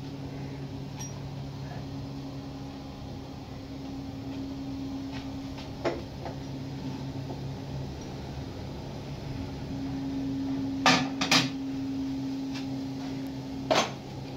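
Steady low machine hum, with a few sharp metal clanks as a T-handle chuck key tightens a workpiece in a lathe's four-jaw chuck: one about six seconds in, two close together near eleven seconds and one more near the end.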